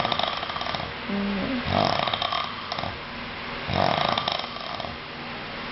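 A man snoring heavily in his sleep: three rattling snores, about two seconds apart.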